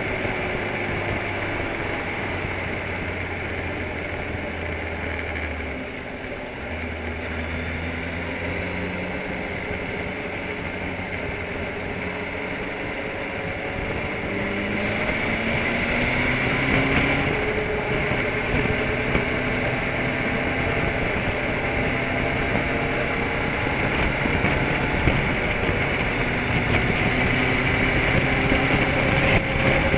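Car driving, heard from inside the cabin: a steady engine hum with road noise. About halfway through the engine pitch rises and the sound grows louder, as the car speeds up.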